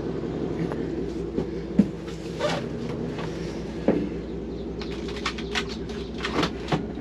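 Scattered light clicks and knocks of hands handling a truck's dashboard parts, sharpest about two seconds in, four seconds in and near the end, with a quick run of ticks toward the end, over a steady low hum.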